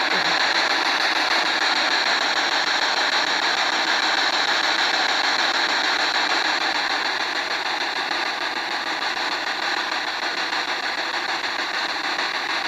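Handheld spirit box putting out steady radio static, easing slightly in the second half.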